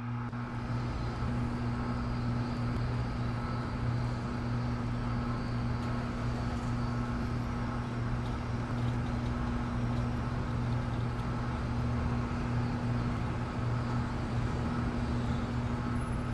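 Steady background noise with a constant low hum, unchanging throughout, like a distant traffic or urban ambience bed.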